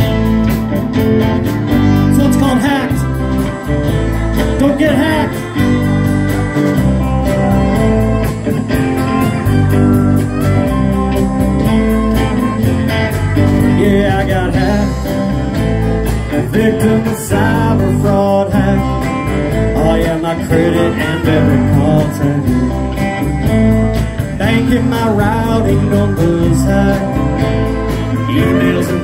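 Live band playing a song: electric guitar, bass guitar, acoustic guitar, keyboard and drums, with singing over it.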